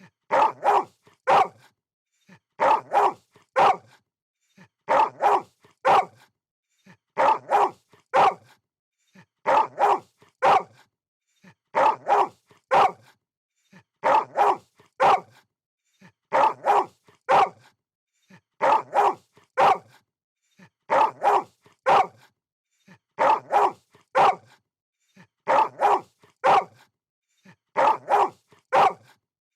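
Dog barking in quick groups of about three barks, each group repeating every two seconds or so in an even, unchanging loop with silence in between.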